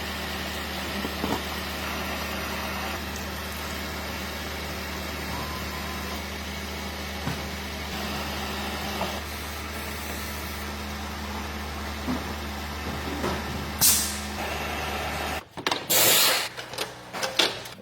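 A car engine idling with a steady low hum and a few light clicks, as is done when a freshly refilled automatic transmission's oil level is checked. A short sharp hiss comes near the end, and then the hum stops abruptly and gives way to a few loud noisy bursts.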